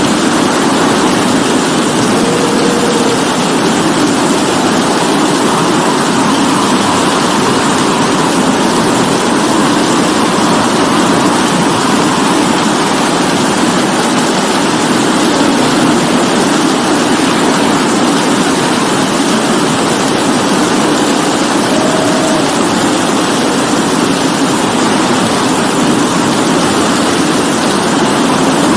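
Steady rain falling, an even hiss that doesn't let up, with a faint wavering hum low underneath.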